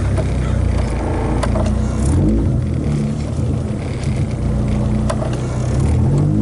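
Honda Civic engine running while the car is driven, its pitch dropping and rising twice as the gas pedal is released and pressed again. A couple of faint clicks sound over it.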